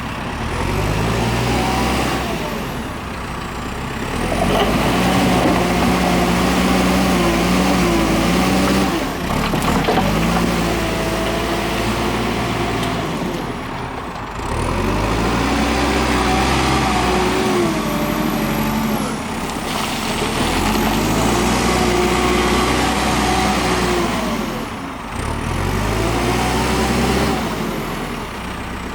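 JCB 3CX backhoe loader's diesel engine revving up under load and dropping back again, about five times over, as the machine works, with a whine that rises and falls with the engine.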